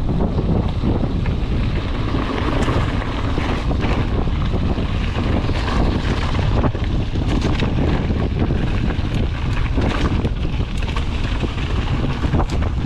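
Wind buffeting the camera microphone, a steady loud low rumble, with scattered clicks and knocks from a mountain bike riding over rough trail.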